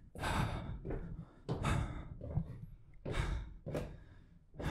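Footsteps going down a narrow wooden staircase, with the walker's breathing: a handful of uneven scuffs and steps about every half second to second.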